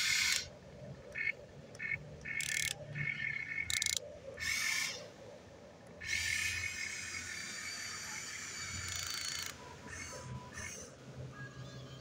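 Huina 1592 RC excavator's electric gear motors whining in several short bursts, then in one longer run from about six to nine and a half seconds in, as the tracks, boom and bucket are worked.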